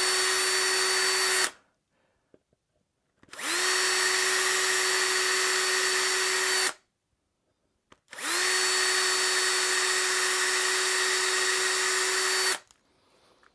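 Cordless drill boring starter holes for rack-rail screws in three runs: a short run that stops about a second and a half in, then two longer runs of about three and four seconds, each spinning up quickly to a steady whine.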